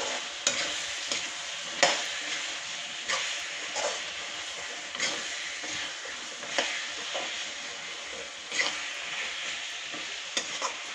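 Potatoes and badi frying in oily masala in a metal kadai while a metal spatula stirs them: a steady sizzle broken by scrapes and knocks of the spatula against the pan every second or so, the loudest about two seconds in.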